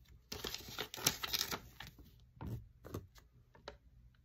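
Folded paper instruction leaflet being unfolded and handled: a quick run of crackles and rustles in the first second and a half, then a few more about two and a half seconds in.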